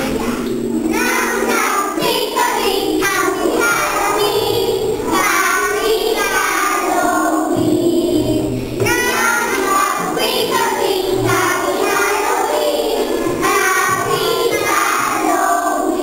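Children's voices singing a song together over a music backing.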